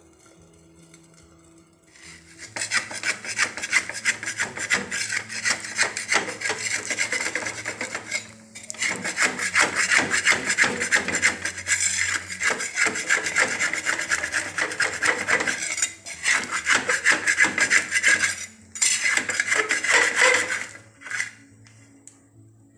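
Metal spatula scraping against an unglazed clay pan in quick rasping strokes, working under an odupale rice pancake to loosen it from the pan. The scraping starts about two seconds in and comes in four stretches with short breaks, stopping near the end.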